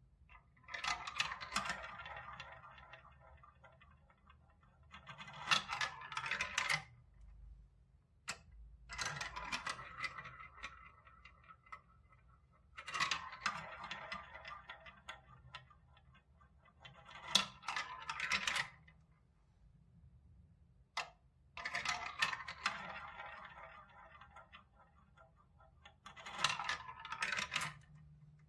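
Small balls rolling and rattling through a plastic marble run's tubes and spiral funnels, one after another, about four runs in all. Each run ends in a quick burst of clicks as the ball drops into the bottom tray against the balls already there.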